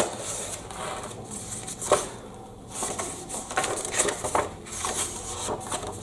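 Cardboard packaging being handled and opened: irregular rustling and scraping, with a few sharp knocks at the start, about two seconds in, and a run of them in the second half.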